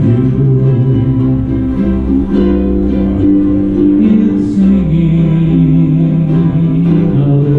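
A large group of ukuleles strumming a song together, with voices singing along.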